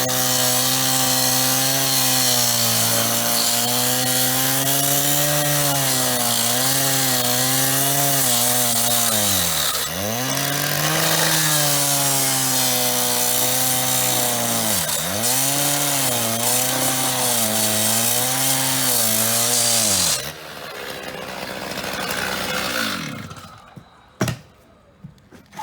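Power saw cutting into a metal payphone, its motor sagging in pitch twice as it bites into the metal. About twenty seconds in it is shut off and winds down, followed by a few sharp clicks.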